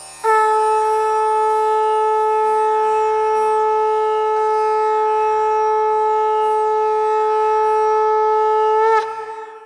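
A conch shell (shankh) blown in one long, loud, steady note that starts just after the beginning, bends slightly near the end and fades. A faint low rhythmic music bed plays beneath it.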